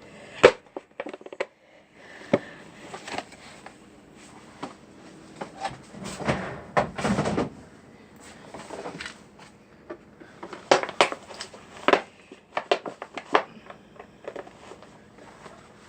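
Handling and clattering of household containers: scattered knocks and clicks, with a longer crunching, scraping stretch about six seconds in.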